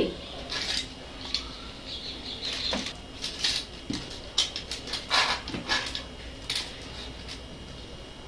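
Close-up eating sounds: irregular wet chewing and smacking of food, mostly in the first seven seconds.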